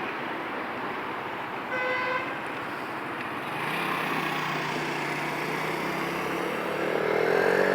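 Road traffic with cars driving past; a short car horn toot about two seconds in, then a car engine rising in pitch as it accelerates past near the end.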